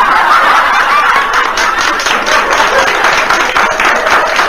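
Audience applauding and laughing in response to a punchline: dense, steady clapping, with laughter at the start.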